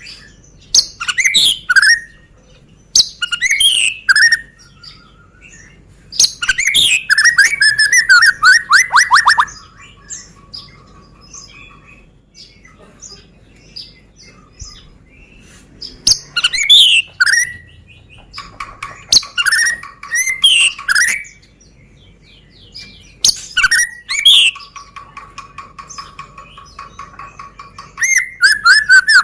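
Medan-type white-rumped shama (murai batu) singing: loud, varied whistled phrases in bursts every few seconds, some with quick falling sweeps. Between the phrases come softer runs of fast repeated notes.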